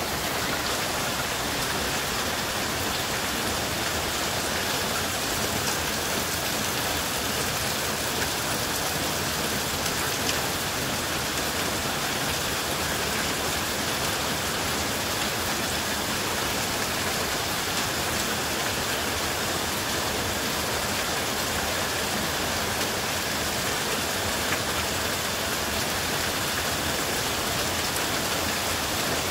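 Heavy downpour, about an inch an hour, falling onto a flooded sandy yard: a steady, even hiss of rain pelting standing water.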